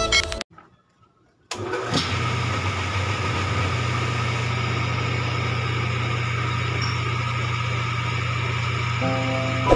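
A motor starts up about a second and a half in after a brief silence and runs at a steady speed with an even low hum.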